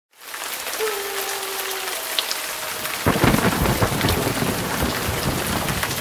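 Steady hiss of heavy rain, with a thunderclap breaking suddenly about three seconds in and rumbling on.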